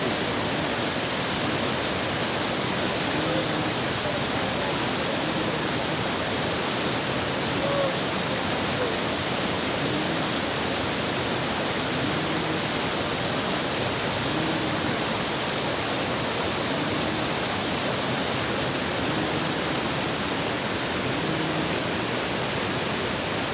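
Waterfall pouring, a steady, loud, unbroken rush of falling water.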